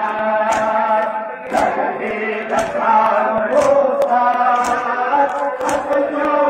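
Men's voices chanting a noha (Shia lament), with a sharp slap about once a second, six in all, as the mourners beat their chests in unison (matam).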